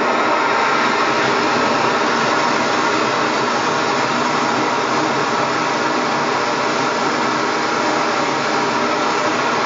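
Primus MFS multi-fuel stove burner running on propane at full output, a steady loud hiss. The flame is lifting toward blow-out, with the LPG adapter's adjuster set full open.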